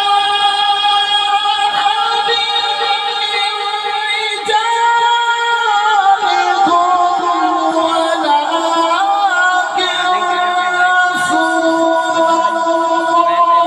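A male qari's voice reciting the Quran in long, drawn-out melodic notes. One held tone steps down in pitch about six seconds in, then wavers and bends through ornamented turns.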